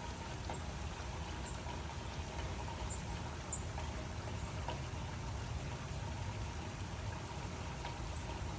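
Steady rainfall: an even, unbroken hiss with a few faint drop ticks scattered through it.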